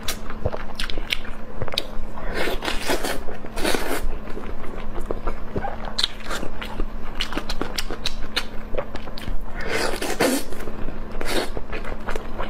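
A person eating spicy noodles close to the microphone: wet chewing and mouth clicks throughout, with loud slurps about two to four seconds in and again near ten seconds.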